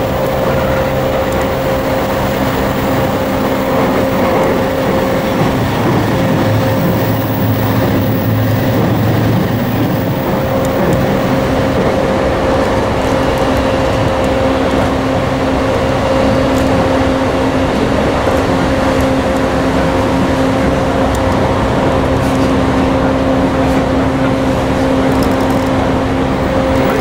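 Running sound of a JR East E235 series 1000-subseries electric train with Mitsubishi SiC-VVVF traction equipment: a steady rumble of wheels on rail with a whine held at one pitch, as the train runs at a constant speed. A lower hum fades out about ten seconds in.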